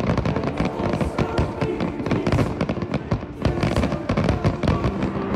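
Aerial fireworks in a finale barrage: many shells bursting and crackling in rapid, continuous succession, several bangs a second.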